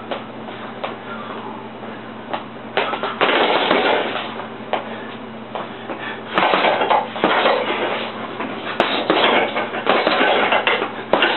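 Boxing gloves thudding into a hanging heavy bag: a few scattered punches, then flurries of quick hits starting about three, six and nine seconds in, over a low steady hum.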